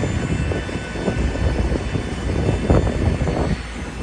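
Boeing 737-800 cabin noise while taxiing after landing: the steady rumble of the CFM56 jet engines at low power, with louder uneven rumbling a little past halfway.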